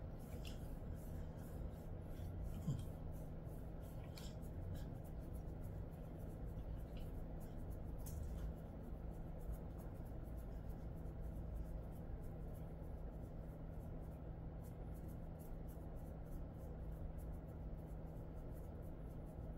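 Fingers scratching and rubbing a Jindo dog's fur during a back massage: faint, repeated scratchy strokes, over a steady low hum.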